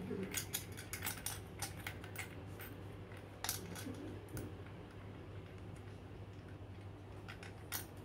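Irregular small clicks and taps of a metal retaining ring and a projector lamp being fitted into a plastic motorcycle headlight housing, most of them in the first two seconds, with a few more later, over a steady low hum.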